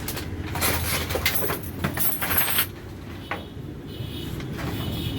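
Crinkly rustling and a few light clicks of packaging being handled, as the boxed processor is unpacked, over a steady low background rumble.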